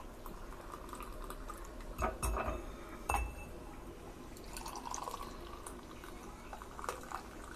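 Tea poured from a saucepan through a metal tea strainer into glass tumblers, the liquid trickling and splashing into the glass. A few sharp clinks come about two and three seconds in.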